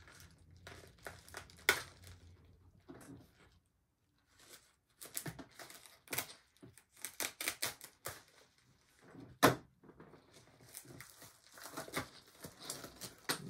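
Plastic mailer envelope being torn and pulled open by hand: irregular crinkling and ripping, with a sharp rip near the start and another about two-thirds of the way through.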